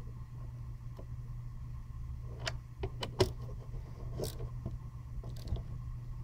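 A T30 Torx hand driver tightening a screw through a metal bracket into a plastic intake manifold: scattered small clicks and taps, the sharpest about three seconds in, over a faint steady hum.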